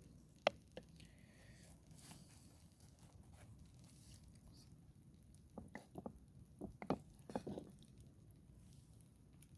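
Faint, scattered light clicks and knocks: a sharp click about half a second in, then a short cluster of small clattering knocks a little past the middle.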